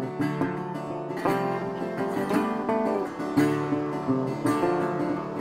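Background music: a light tune of plucked and strummed acoustic guitar.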